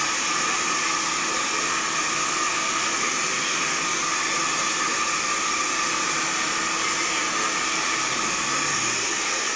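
Handheld blow dryer running steadily as a barber dries a boy's hair: an even rush of air with a steady whine.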